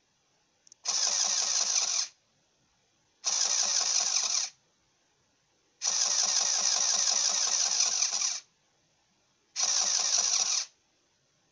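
Small electric pump from an RC harbour boat running in four short bursts, switched on and off each time 5 V is applied to it. The third run is the longest, about two and a half seconds; a faint click comes just before the first.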